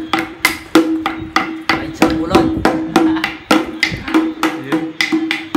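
Lion-dance drum beaten with sticks in a quick, uneven rhythm of about three or four strikes a second, each stroke leaving a ringing tone from the drumhead.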